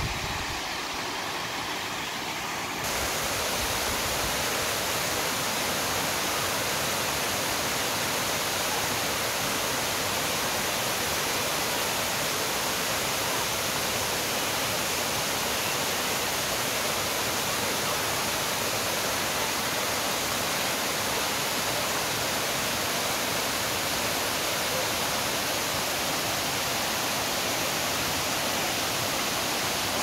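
A large river waterfall, water cascading over rock steps: a steady rushing hiss that becomes louder about three seconds in and then holds.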